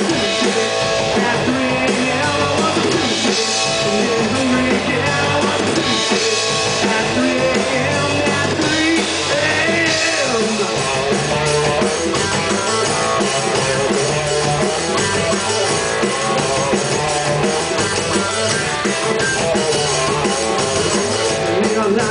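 Live rock band playing loudly: two electric guitars and a drum kit, with no break.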